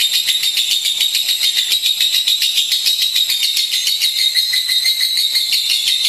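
Lovebird chattering in one long, unbroken run of rapid high chirps, about ten a second.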